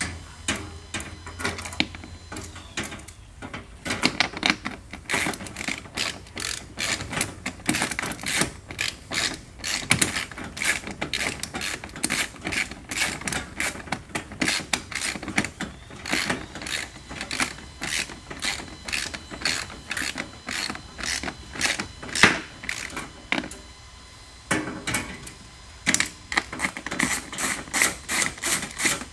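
Hand ratchet wrench clicking in fast runs as small quarter-20 bolts are tightened, with a pause of about two seconds late on before the clicking starts again.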